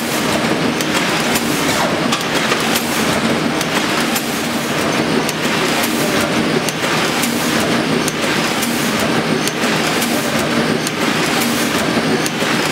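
Sheet-fed printing press running: a steady mechanical clatter with repeated sharp clicks from its moving parts.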